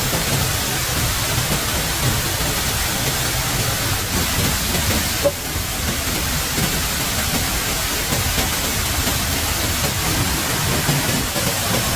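Steady rushing water noise: a constant hiss over a low rumble, with one short click about five seconds in.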